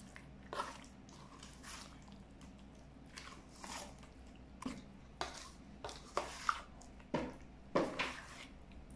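A spoon stirring chicken pieces through a thick yogurt-and-spice marinade in a stainless steel bowl: irregular wet squelching strokes, several of them with a sharper knock.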